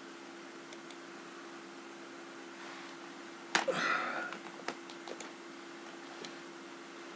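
Steady low hum of the recording with a few light clicks, and about three and a half seconds in one sudden short burst of noise lasting under a second, the loudest sound here.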